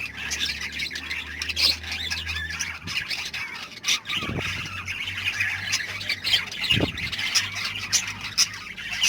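A flock of lovebirds chattering and squawking constantly, a dense mix of short, sharp, shrill calls.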